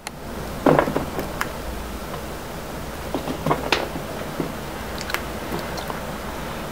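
Scattered knocks and taps over a steady hiss: chinchillas hopping about on a tile floor and bumping against plastic exercise wheels. The loudest knock comes just under a second in.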